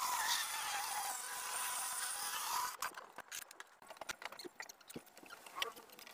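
Small handheld circular saw cutting through a sheet of plywood with a steady whine, stopping suddenly a little under three seconds in. Scattered knocks and clicks from wooden panels being handled follow.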